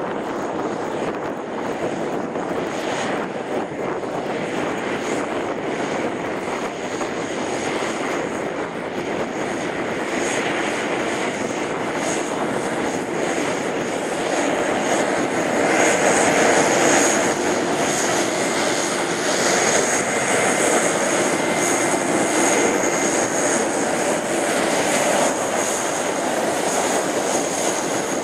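Piper PA-46-500TP Meridian's single Pratt & Whitney PT6A turboprop running at taxi power: a steady propeller drone with a thin high turbine whine, growing louder about halfway through as the aircraft taxis closer.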